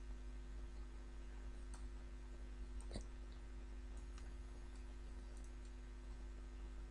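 Faint, scattered computer mouse clicks over a steady low hum, a few seconds apart, the clearest about three seconds in.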